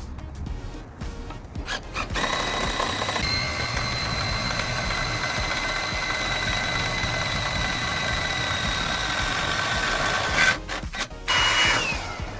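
An electric power tool runs steadily with a motor whine for about eight seconds, then stops. Near the end there is a short second burst whose whine falls as the tool spins down.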